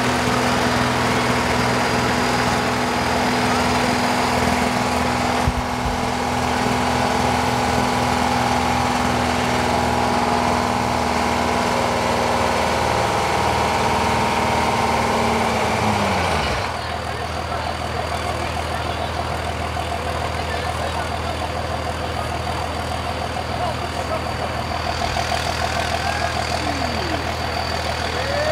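Heavy engines of demolition-derby school buses running steadily. About sixteen seconds in, one engine's pitch drops sharply, then a lower steady engine drone carries on.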